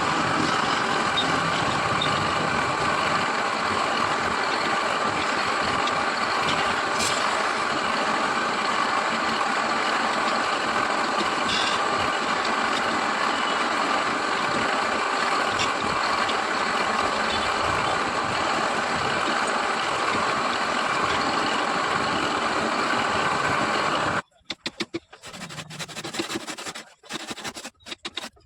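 Wood lathe running steadily with a constant mechanical noise, cutting off suddenly near the end, followed by faint, scattered scrapes and knocks.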